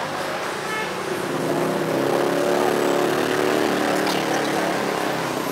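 A motor vehicle engine passing close by on the street, its steady hum growing louder about a second and a half in and fading near the end, over general street noise.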